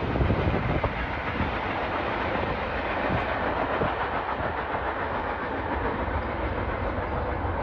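Freight train cars rolling on the rails as the train moves away: a steady rumble of wheel and rail noise with scattered clicks and clacks.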